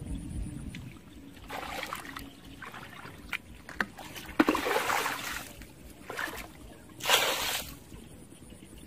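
Muddy water sloshing and splashing as a plastic bucket is dipped into a shallow puddle and emptied, in several separate bursts, the loudest splash about three-quarters of the way through.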